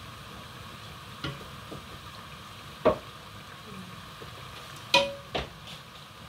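Hot oil sizzling steadily in a cooking pot on the stove, with a few sharp clicks and clinks over it. The loudest come about three and five seconds in, and the one near five seconds rings briefly like metal.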